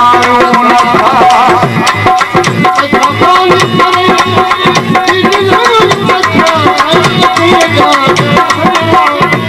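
Live Sindhi folk music without singing: a melody instrument plays a wavering, ornamented line over a steady hand-drum rhythm.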